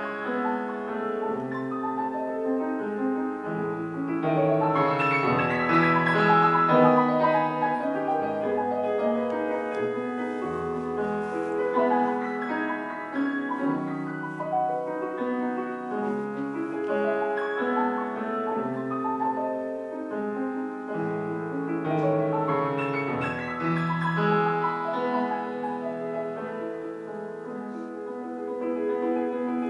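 Yamaha grand piano played solo: a classical piece with a sustained melody over deep bass notes, swelling louder about five to eight seconds in.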